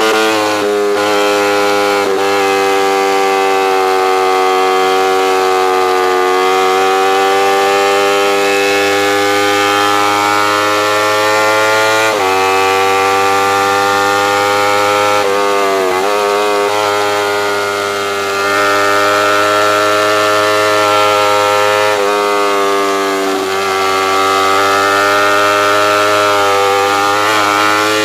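Kawasaki Ninja 250R's parallel-twin four-stroke engine running hard at high revs. The pitch climbs slowly and then drops or jumps sharply a few times, about 12 and 16 seconds in and again near the end.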